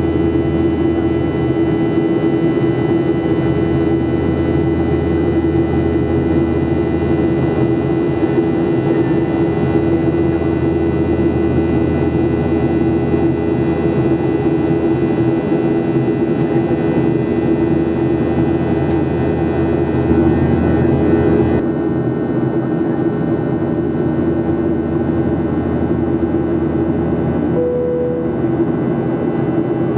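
Cabin noise of a Boeing 737-800 in flight, heard from a window seat over the wing: the steady drone of its CFM56-7B turbofan engines with the roar of airflow past the fuselage. The upper hiss eases a little about two-thirds of the way through.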